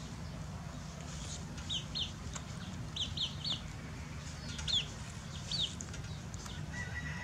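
Short high chirps, each sliding down in pitch, heard singly and in quick runs of two or three, over a steady low hum.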